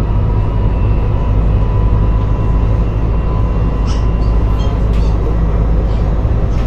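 Tram running along its track at speed: a loud, steady low rumble of the wheels on the rails, with a few light clicks a little past halfway.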